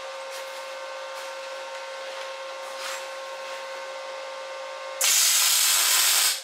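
MIG welder laying a short tack weld on a steel frame tube: the arc's loud, steady hiss starts about five seconds in, lasts about a second and a half, then cuts off sharply. Before the arc, only a steady background hum.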